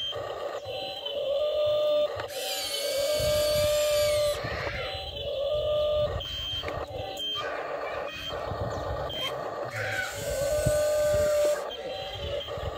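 Remote-control toy excavator's small electric motors whirring in spells as the boom, arm and bucket move, starting and stopping every second or two.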